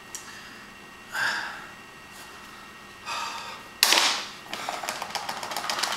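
Product packaging being torn open: a sudden loud rip a little before the four-second mark, then a quick run of crackling as the wrapping is pulled away.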